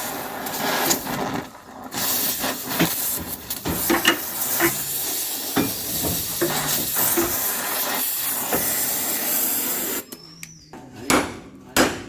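Welding on a Maruti SS80's steel body panel: a steady hiss with many small pops. It stops about ten seconds in, and a couple of sharp hammer taps follow near the end.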